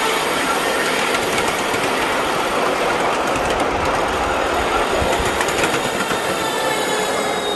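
Ride-on miniature railway train rolling over rail across a steel truss bridge: a steady rumble of wheels on track with a light clatter of rail joints.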